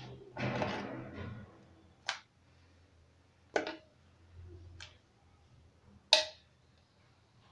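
Metal ladle serving thick okra soup from a stainless-steel pot into a plastic bowl: a wet scoop and slop about half a second in, then four sharp clinks of the ladle over the next few seconds, the loudest near the end.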